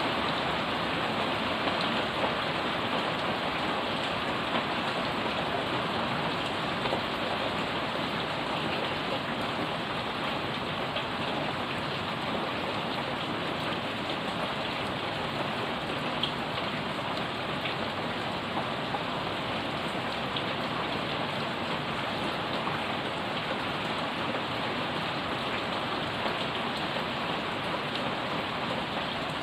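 Heavy rain falling steadily on a wet, puddled paved yard and plant leaves, an even hiss of spatter with a few louder single drops.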